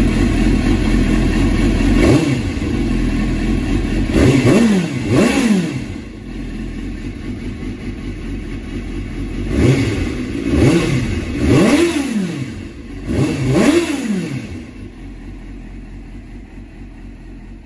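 Suzuki GSX-R sports bike's inline-four engine idling while the throttle is blipped about seven times, each rev rising and falling quickly, some in quick pairs. After the last blip the sound quietens toward the end.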